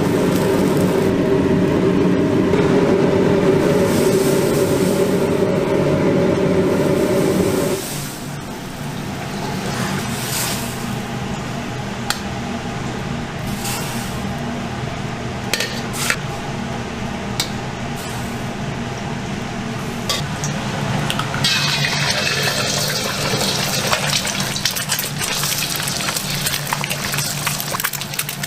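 Wok cooking over a gas burner. First there is a steady burner noise as liquid is poured into the hot wok. After an abrupt change about 8 seconds in, the kitchen is quieter, with scattered metal clinks of a ladle on a pan. From about 21 seconds in, eggs sizzle as they fry in hot oil.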